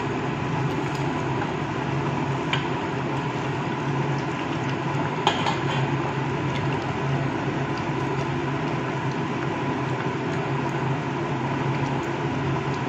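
Steady low hum and hiss of kitchen noise, with a few light clicks of a metal slotted spatula against the pan, about two and a half and five seconds in, as fried fish pieces are laid into the simmering curry.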